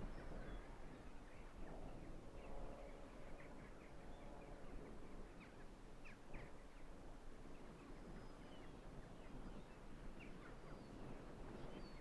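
Faint outdoor ambience: a low, steady rumble with many short bird calls scattered through it.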